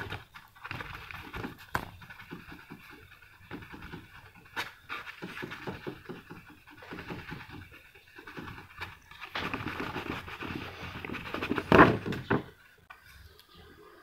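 A fingertip rubbing the clear-coated plastic body of a model car in quick back-and-forth polishing strokes, a rough rhythmic rubbing that swells and fades, loudest near the end.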